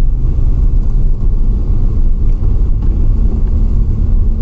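Car driving on a rough off-road track: a loud, steady low rumble of engine and tyres, with a faint steady hum joining about halfway through.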